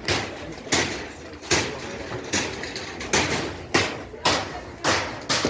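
Repeated hammer blows, about one and a half a second, each a sharp bang with a short ring: structures being knocked down by hand.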